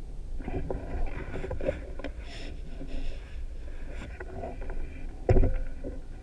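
Handling noise from the air rifle as it is moved and re-aimed: rustling and small clicks, with one sharp knock about five seconds in.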